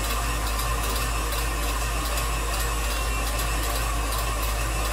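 Tilt-head stand mixer running at a steady speed, beating sponge cake batter, its motor giving a constant whir over a low hum.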